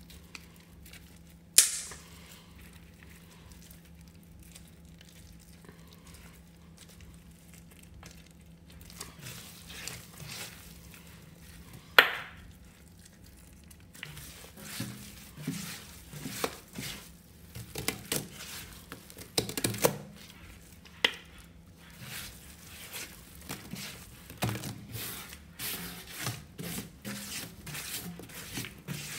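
Rubber-gloved hands squeezing, crumbling and scraping crumbled sponge mixed with cleaning paste against a stainless steel sink: soft irregular crunching and crinkling, sparse at first and much busier in the second half. Two sharp snaps stand out, about a second and a half in and again about twelve seconds in.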